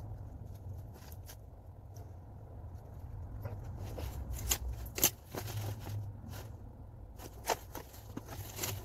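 Scattered sharp clicks and clinks of metal tools being handled and fitted against the suspension arm, the loudest about five seconds in and again about two and a half seconds later, over a low steady hum.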